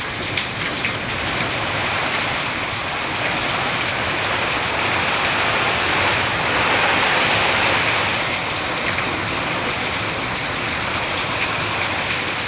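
Heavy rain pouring down steadily, swelling a little louder about halfway through.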